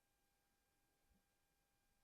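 Near silence: a faint steady electrical hum, with one soft low tap about a second in.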